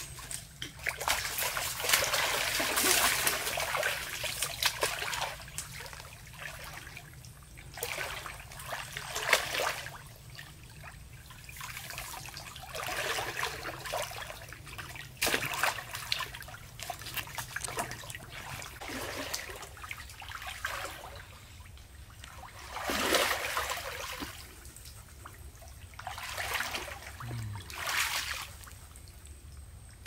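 Water splashing and sloshing in irregular bursts as a person wades through a shallow stream and gropes in the water along the bank by hand, feeling for fish.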